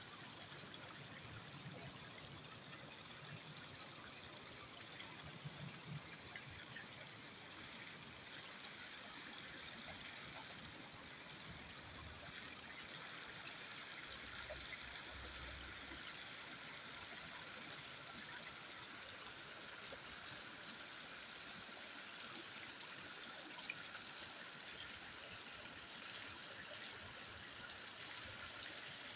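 Small woodland brook trickling and splashing over stones in little cascades, a steady water sound.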